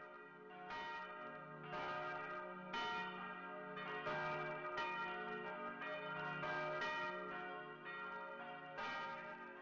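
Church bells ringing, a new strike about once a second, their tones overlapping and ringing on; the peal fades away near the end.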